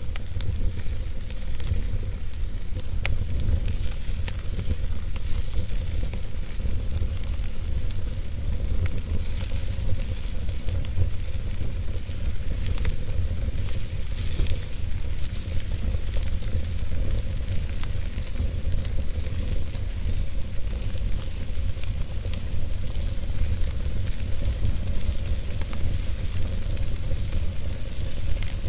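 Wood fire burning in an open hearth: steady crackling with many small pops over a low rumble.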